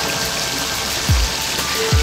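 Background music with held notes and deep booming beats about a second in and near the end, over a steady rain-like hiss.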